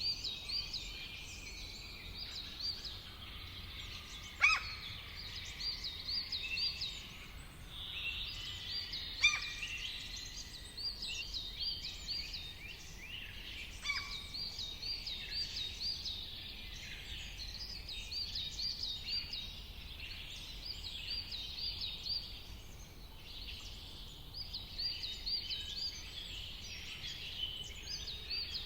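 Many songbirds singing and chirping at once in a dense, overlapping chorus of high, quickly repeated notes. Three louder, sharper calls drop in pitch, about four, nine and fourteen seconds in. A steady low rumble runs underneath.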